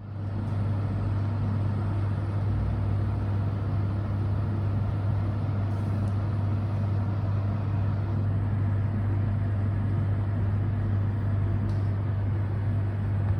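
A steady, unchanging low machine hum with a constant noise bed beneath it, starting abruptly at the beginning.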